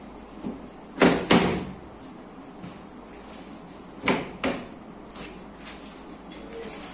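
Sharp knocks on the panels of an IKEA GERSBY bookcase as it is fitted together: two quick pairs, about a second in and again about four seconds in.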